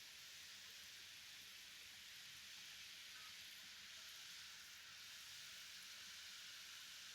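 Murukku frying in hot oil: a faint, steady sizzle from the bubbling oil around the freshly added dough.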